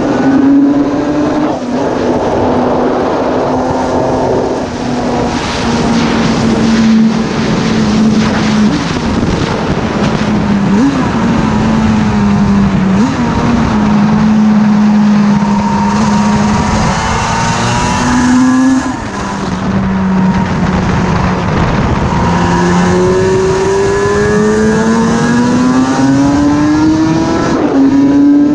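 750cc Yamaha two-stroke inline-four racing motorcycle engine under hard riding, heard from the rider's helmet with wind rushing over the microphone. Its pitch holds fairly steady, drops sharply about nineteen seconds in as the throttle closes, then climbs steadily near the end as the bike accelerates.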